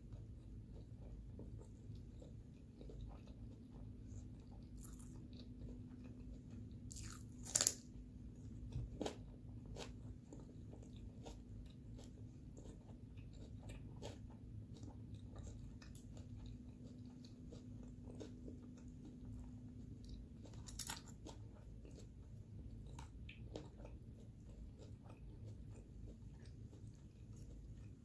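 Chewing and crunching crisp raw cucumber, with many small wet clicks and two louder crunching bites, about a quarter of the way in and again about three-quarters through.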